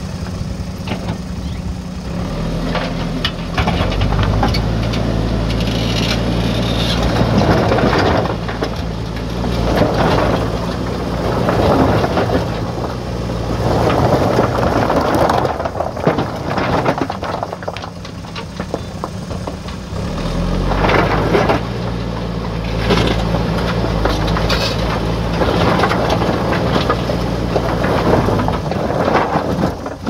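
JCB 3DX backhoe loader's diesel engine working under load as the front loader bucket is driven into a heap of stones, the stones grinding, scraping and knocking against each other and the steel bucket. The engine revs up as the bucket pushes in, and the crunching of rock comes in repeated surges.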